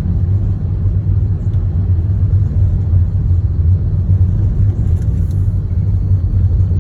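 Steady low rumble of a car on the move, with engine and road noise running evenly throughout.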